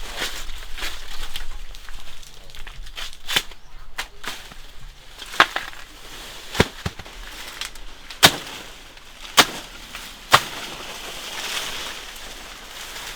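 A series of sharp knocks, about six of them at uneven spacing over several seconds, against a faint outdoor background.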